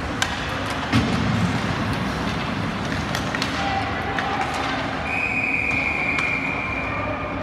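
Ice hockey game at a rink: a steady din of play with a loud knock about a second in and several sharper clicks, then a steady high tone held for about two seconds near the end.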